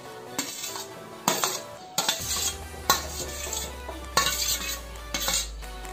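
Perforated steel skimmer scraping and clinking against a steel plate and pot as cooked rice is scooped into the blue butterfly-pea water, about six strokes roughly a second apart. Background music plays throughout.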